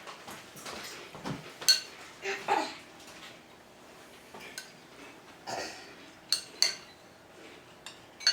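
Cutlery clinking against a dish while eating: several sharp clinks with a short ring, about four in all, with softer scraping sounds between them.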